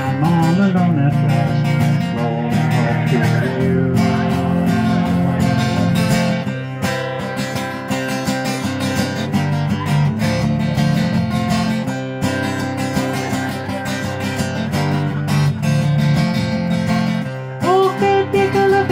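Acoustic guitar, a cutaway steel-string, strummed and picked in a steady run of chords.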